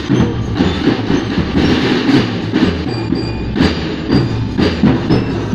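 School marching drum band of snare drums playing together in a fast, steady rhythm, with accented beats about twice a second.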